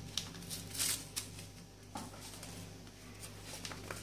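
Small paper sachet of vanilla sugar being handled and opened over a blender jar: faint paper rustling with a few light clicks.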